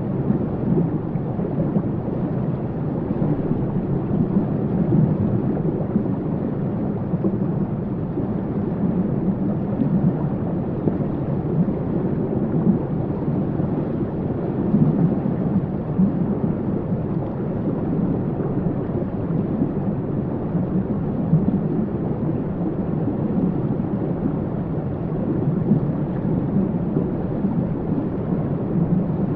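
Waterfall: a steady, deep rush of falling water, even and unbroken throughout.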